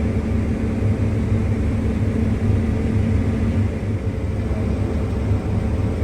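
New Holland combine running steadily while cutting wheat, heard from inside the cab as an even low hum with a steady drone.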